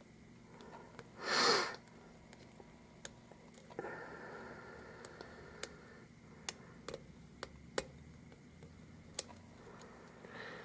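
Faint, irregular clicks and ticks of a pick working the pin stacks of an Abus 83/45 euro cylinder under very light tension. A short breathy hiss about a second and a half in is the loudest sound.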